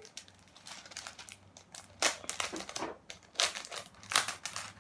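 Plastic packets crinkling and rustling as they are handled, with sharper crackles about two, three and a half and four seconds in.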